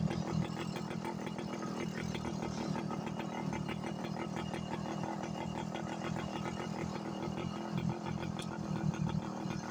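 Motorcycle engine idling steadily while it warms up after a cold start.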